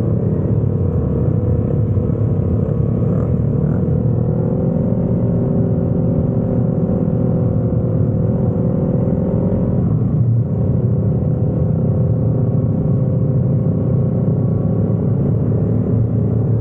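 Motorbike engine running steadily under way, with a heavy low rumble and a slowly wavering engine note.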